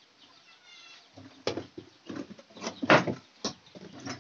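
A few sharp knocks and clatters of boiled corn cobs and a hand against an open aluminium pressure cooker as a cob is lifted out, the loudest about three seconds in. A brief bird chirp comes near the start.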